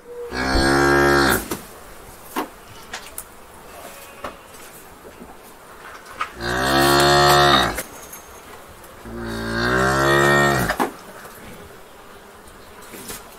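Cows mooing in a barn: three long moos, each a second or more, the second and third close together. Between them, light knocks and clatter over a low barn background.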